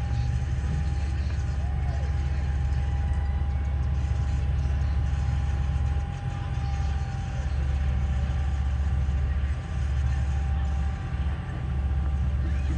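Heavy truck engine running steadily with a deep low rumble and a thin steady whine above it, the rumble dipping briefly a few times.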